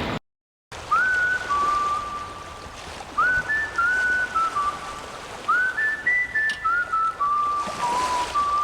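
A whistled tune after a sudden cut: three short phrases of clear held notes, each opening with an upward scoop and then stepping down in pitch.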